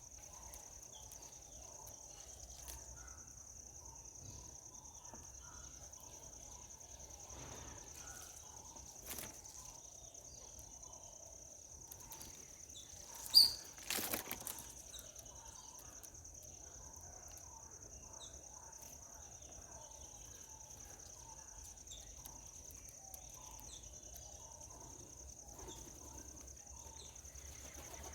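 Outdoor jungle ambience: a steady high-pitched insect drone with scattered soft bird chirps. About 13 seconds in there is one loud sharp call, followed by a brief clatter.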